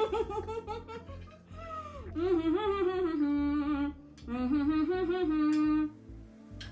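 A woman humming a tune with her lips closed. Wavering notes come first, then two short phrases, each ending on a long held note; the second phrase stops about six seconds in.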